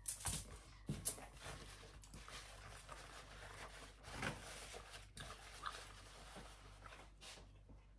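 A slice of spicy stuffed-crust pizza being bitten into and chewed: faint, irregular mouth clicks and crackles, a little louder in the first second.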